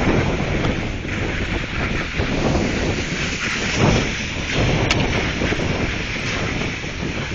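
Wind buffeting the microphone of a moving skier's camera, over the hiss of skis sliding on packed snow.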